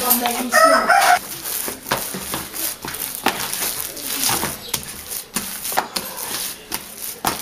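Hands kneading soft, sticky bread dough worked with shortening in a plastic bowl: a long run of irregular squelches and slaps. A brief high-pitched call sounds near the start.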